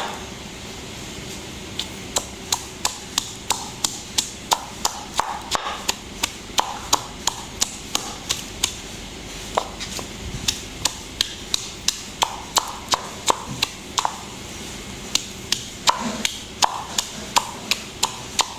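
Knife chopping on a cutting board: a steady run of sharp taps about three a second, with a few short pauses.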